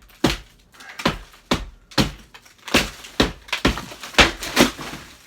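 Hammer blows breaking up a drywall ceiling, a steady run of sharp knocks about two a second, with the board crunching and cracking as it gives.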